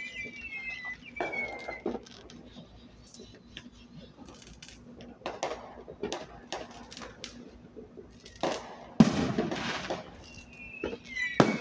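Consumer aerial fireworks going off: a run of sharp pops and crackles as shells burst, then a loud bang about nine seconds in followed by about a second of dense crackling, and another bang near the end.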